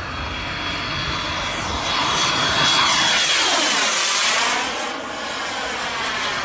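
Model ViperJet's jet turbine whining high as the jet flies past overhead. It swells to its loudest about halfway through, then its pitch sweeps downward as it goes by.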